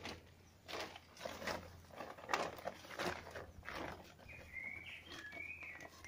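Irregular scuffing and rustling noises, about two a second, through the first four seconds. Then a bird calling with a short run of chirping notes from about four seconds in.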